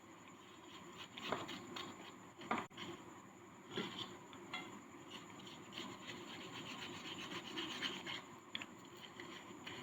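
Compacted sand being scraped and crumbled: a gritty rasping with small crackles and a few sharper crunches.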